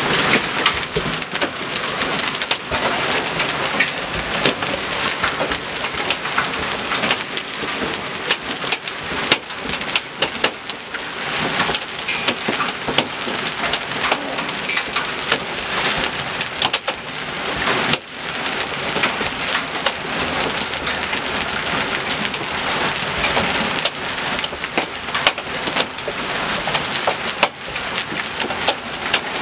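Small hail and rain pelting pavement and nearby surfaces: a dense, steady patter of countless small hits.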